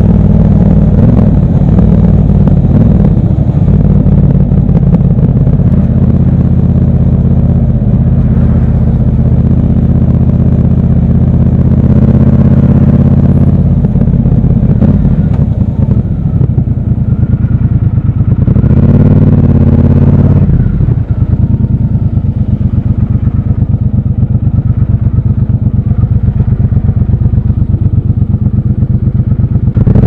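Triumph Scrambler 1200 XC's parallel-twin engine running under way, heard from the rider's seat. About nineteen seconds in the revs rise and fall, then the engine settles into an even, low-rev pulsing beat as the bike creeps through slow traffic.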